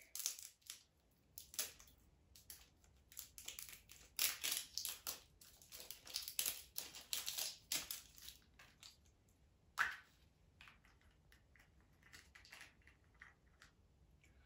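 A small plastic toy egg and the little plastic items inside it being handled and opened: irregular crinkling and clicking, busiest in the first half, with one sharper click about ten seconds in.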